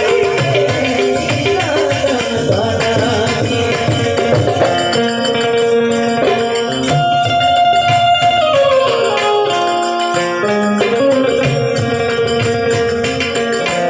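Gujarati devotional bhajan music: a harmonium playing a melody of held notes that steps downward about two-thirds of the way in, over tabla and jingling hand percussion.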